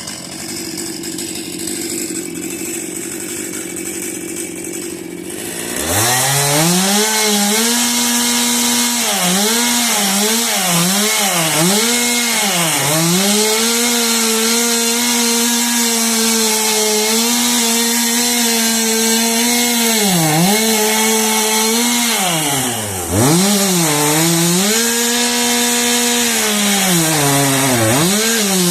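Stihl two-stroke chainsaw, quieter for the first few seconds, then opened to full throttle about six seconds in and cutting wood. Its engine pitch dips again and again as the chain bites and bogs in the cut, then recovers.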